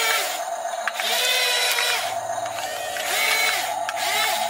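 Small electric motors and gearboxes of a toy RC excavator and RC bulldozer whining in short spells, each rising in pitch, holding, then falling as a control is worked, over a steady high hum.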